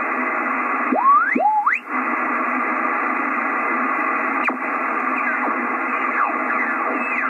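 Icom IC-756PROII HF transceiver's receiver hiss in upper sideband as the VFO is swept across the 80-metre band. Whistling tones slide up and down in pitch as the tuning passes over stations: two steep rising sweeps come a little after a second in, and fainter falling ones about five to six seconds in. There is a single click near the middle.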